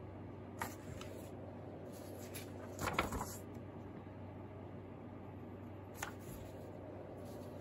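Sheets of drawing paper being handled: a short paper rustle about three seconds in as one drawing is swapped for the next, with a light paper flick shortly after the start and another about six seconds in, over a low steady hum.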